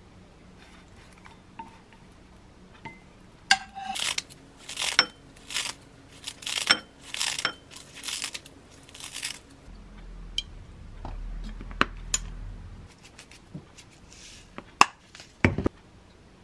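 Kitchen scissors snipping a sheet of dried laver (gim) over a bowl: a run of about seven crisp snips. A low hum follows for a few seconds, then a few light knocks near the end.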